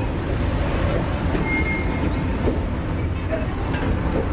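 Steady low rumble of a moving passenger rail car, heard from inside the dining car, with faint clinks and murmur from the passengers.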